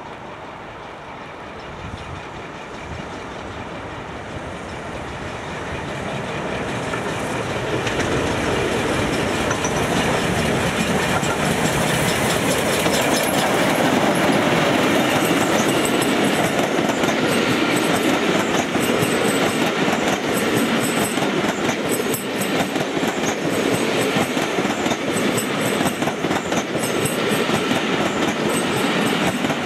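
LMS Jubilee class 45699 Galatea, a three-cylinder 4-6-0 steam locomotive, approaching under steam and passing, growing louder over the first dozen seconds. Its train of coaches then rolls by with a steady clickety-clack of wheels over rail joints.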